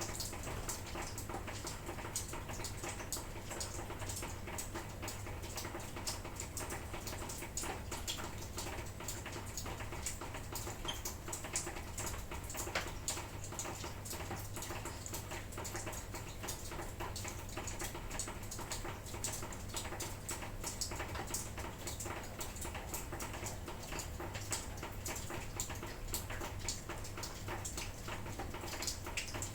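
Light drizzle pattering, a dense, irregular run of small drips and ticks over a steady hiss.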